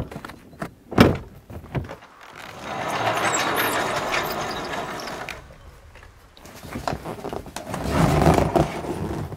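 A knock, then a large wooden sliding barn door rolling open along its track, a rumble that swells and fades over about three seconds. A second, lower rumble follows near the end.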